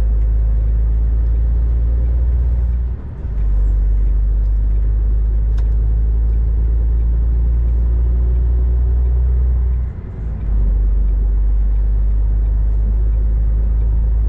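Heavy truck's diesel engine heard from inside the cab: a steady, loud low drone that eases off briefly twice, about three and ten seconds in.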